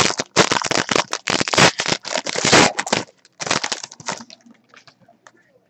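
Foil wrapper of a trading card pack being torn open and crinkled in the hands, a run of loud crackles that dies away about four seconds in.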